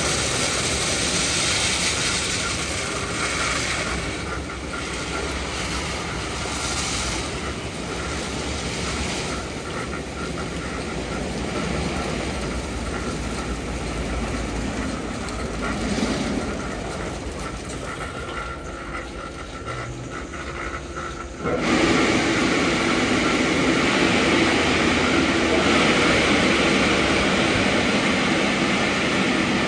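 Istobal M12+ rollover car wash in its shampoo wash: rotating brushes working over the car with water spraying. About twenty seconds in, the drying blower switches on with a sudden jump to a loud, steady rush of air: the start of the intermediate drying.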